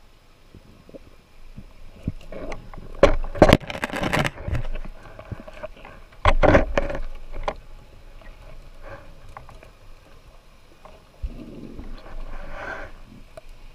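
Underwater noise picked up by a diver's camera: bursts of rushing, bubbling water with knocks and scrapes. It is loudest about three to four and a half seconds in and again around six and a half seconds, with a weaker burst near the end.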